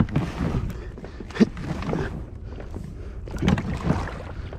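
Fishing kayak being pushed off a muddy bank into a pond: the hull scrapes and knocks in several irregular pushes as it slides into the water.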